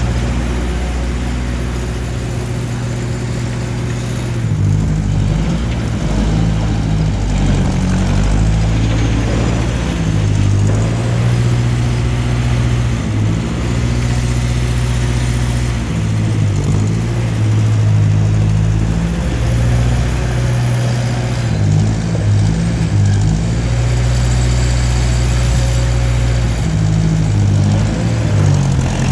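1955 Ferguson TO35 tractor's engine running as the tractor drives, its pitch stepping up and down several times with throttle and load.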